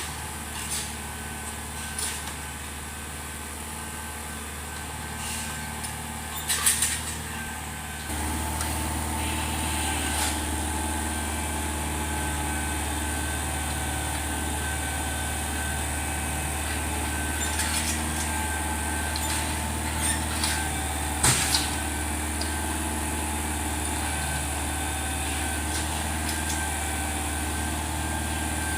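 Tractor engine running steadily, stepping up louder about eight seconds in as it takes on speed or load. A few sharp knocks or clanks come through over the engine noise.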